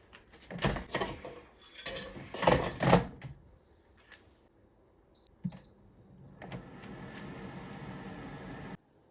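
Kitchen handling sounds: a run of clattering knocks, then two short high beeps with clicks, then a steady running noise for about two and a half seconds that cuts off suddenly.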